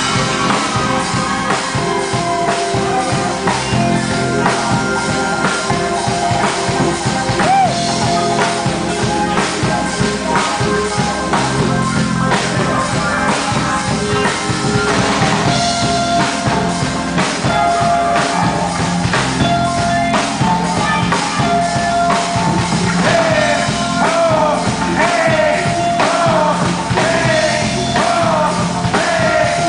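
Live batucada band playing: dense, driving samba drumming with a melody line of held notes over it.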